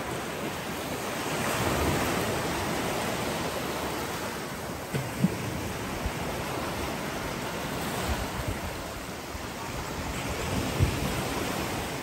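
Sea waves washing onto a beach: a steady rush of surf that swells about two seconds in, with wind buffeting the microphone in a few short low thumps.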